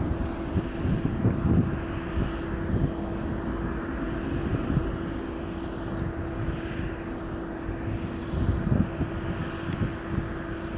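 Airbus A320 jet engines running with a steady drone and a held hum, under gusty low rumbling.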